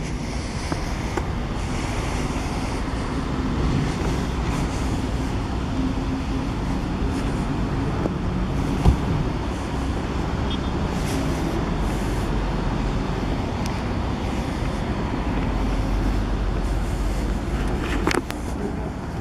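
Steady low rumble of road traffic and vehicle engines, with a short knock about nine seconds in.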